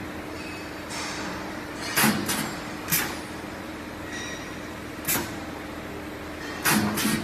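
Pneumatic spot welding machine cycling: about six short, sharp hisses and clacks of its air cylinders firing and venting, some in quick pairs, over a steady hum.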